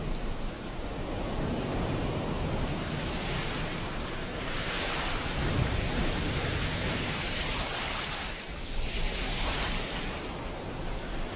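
Ocean surf: waves breaking and washing up a beach over a steady low rumble, with two swells of hiss, about four and nine seconds in.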